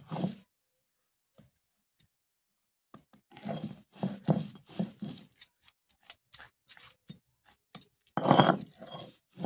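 Stone roller grinding mustard seeds into paste on a flat stone slab: rough grinding strokes in bursts, starting about three seconds in, with a run of small scrapes and clicks, and the loudest stroke near the end.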